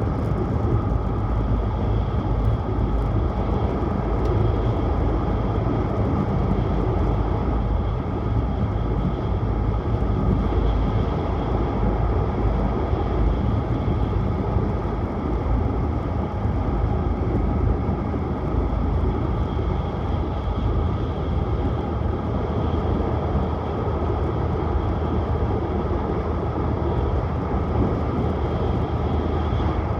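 Tohoku Shinkansen Hayabusa train running at speed, heard from inside the passenger cabin: a steady, unbroken low rumble with a hiss over it and a faint whine.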